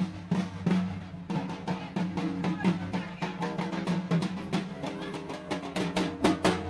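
Music with fast, dense drum strokes over a steady held tone. The drumming grows busier near the end.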